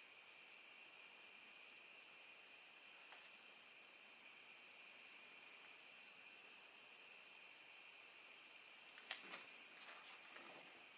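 Steady high-pitched chorus of crickets, with a few faint clicks about nine seconds in.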